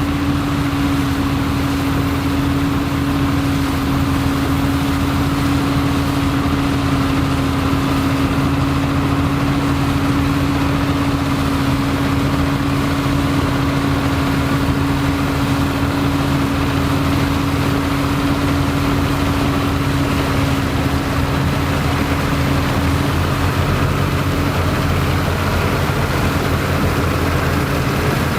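Vintage Dronningborg D2600 combine harvester running steadily, a constant drone with one strong unchanging pitch and no revving or breaks.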